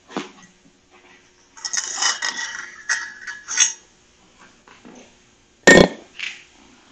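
A drinking vessel clinking and rattling as it is picked up and handled for a sip of water, in a run of clinks from about one and a half to four seconds in. A single sharp knock near the end is the loudest sound.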